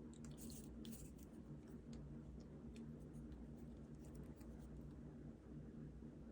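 Faint clicks and rustles of small parts being handled over a low, steady hum. The sounds come mostly in the first second.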